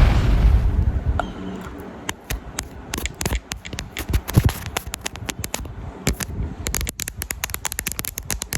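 Small hard objects being handled, with rapid, irregular clicks and taps, after a loud rush of noise that dies away within the first second.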